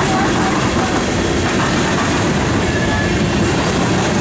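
Freight cars of a passing manifest train, boxcars and tank cars, rolling by at close range: a steady, loud noise of steel wheels running on the rails.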